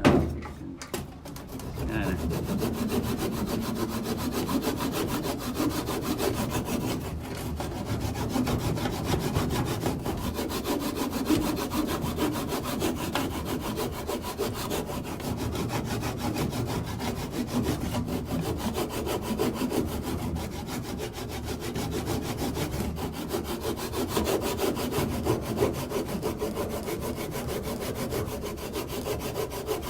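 Hand saw cutting through wood with steady back-and-forth strokes, after a single knock at the very start.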